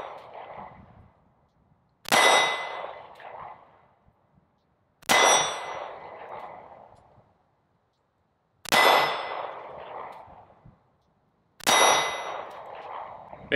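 Four shots from a Smith & Wesson 442 snub-nose .38 Special revolver, spaced about three seconds apart. Each shot comes with the ring of the hit steel target plate. The ringing of an earlier shot is still fading at the start.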